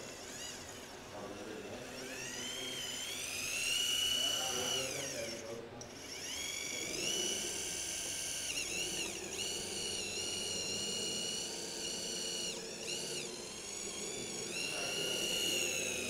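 Electric motor and gearbox of a radio-controlled scale model vehicle whining as it drives. The pitch rises as it speeds up, holds steady, drops off briefly twice and climbs again near the end.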